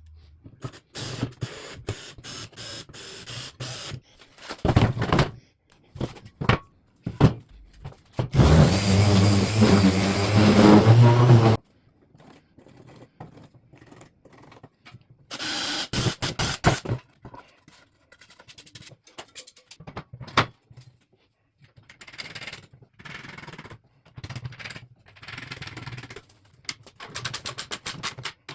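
Workshop work sounds: tools and parts knocking, clicking and scraping. A power tool motor runs steadily for about three seconds near the middle, with a shorter burst of work noise later.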